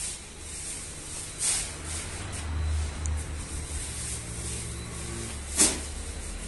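Low, steady hum of a running bakery dough mixer, with a few short sharp knocks, the loudest about five and a half seconds in.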